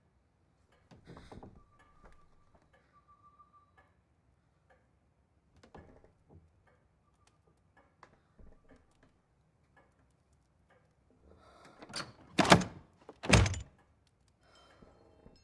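Two loud, heavy bangs on a wooden door about a second apart near the end, after a long near-quiet stretch of faint ticks and a thin high tone.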